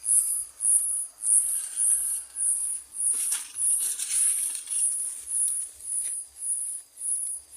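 An insect calling in a high-pitched buzz that pulses evenly, about two pulses a second. Plants rustle briefly about three seconds in, while corn is being picked in the field.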